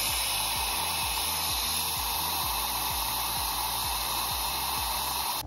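Compressed air hissing steadily from an air-hose blow nozzle into the engine of a 2008 Yamaha R15, blowing out the last of the turpentine oil used to flush it. The hiss cuts off suddenly near the end.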